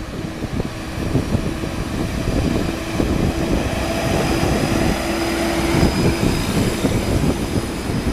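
SA108 diesel multiple unit rolling slowly past at close range, its diesel engine running with a steady drone and rumble. A steady hum runs through most of it and stops about six seconds in.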